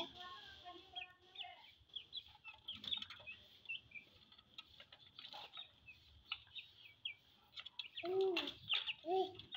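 Chickens feeding: soft, quick clucks and chirps with scattered faint pecking taps, then two louder clucks near the end.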